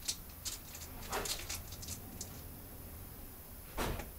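Light clicks and taps of small carburetor parts being handled on a metal workbench, with a short burst of noise near the end.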